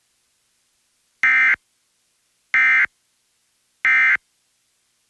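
Emergency Alert System end-of-message code: three short, identical bursts of SAME digital data tones, about 1.3 seconds apart, marking the end of the test alert broadcast on FM radio.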